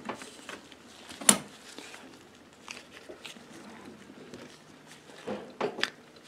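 Sharp metal clicks and knocks as a new Model A starter drive is handled and slid onto the starter's armature shaft. The loudest click comes about a second in, and a few smaller ones come near the end.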